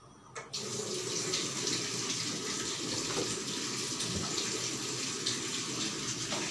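Water running steadily into a kitchen sink, starting about half a second in.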